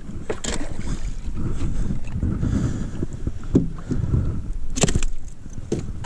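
A bass being reeled up to a small boat and lifted aboard: water splashing and handling noise, with a few sharp knocks and a steady low rumble of wind on the microphone.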